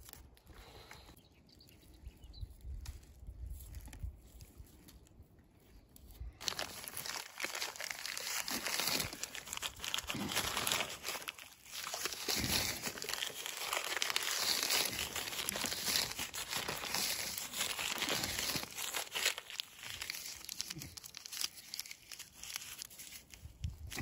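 Close crinkling and crackling of something being handled and crumpled: faint scattered clicks at first, then dense and continuous from about six seconds in.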